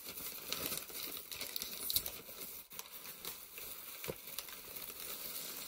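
Crumpled paper packing and a plastic bag crinkling and rustling as a hand rummages through them inside a cardboard box, with irregular sharp crackles.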